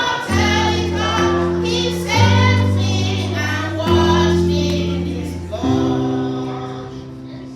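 Worship music: voices singing over low held chords that change about every one and a half to two seconds.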